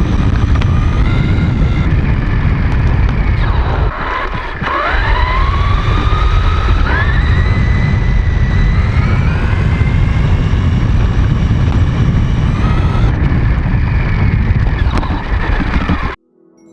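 High-speed RC car driving over rough ground: a heavy rumble of tyres and bumps, with the motor's whine dropping and then rising in pitch as it speeds up again, about four and seven seconds in. The sound cuts off suddenly near the end.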